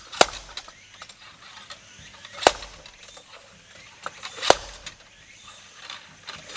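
Logosol Smart Splitter's drop weight falling down its shaft and striking the blade: three sharp metallic clanks about two seconds apart, the weight lifted between strikes. The log is not yet split by the weight alone.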